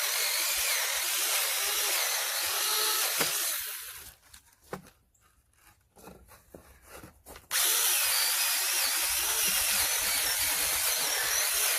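Battery-powered 6-inch mini chainsaw with a brushless electric motor cutting through a larger piece of wood, with a whining motor and the chain rasping through the wood. It stops about four seconds in, is quiet for about three and a half seconds apart from a few small clicks, then cuts again.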